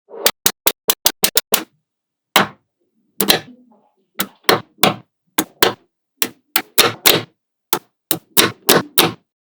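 Small magnet balls clicking and snapping together as they are set in place. A quick run of clicks comes in the first second and a half, then single and paired clacks follow every half second or so.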